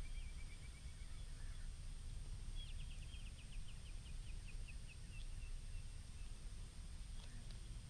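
A bird calling faintly: a short trill at the start, then a rapid string of short chirps from about two and a half seconds in until about five seconds in, over a low steady rumble.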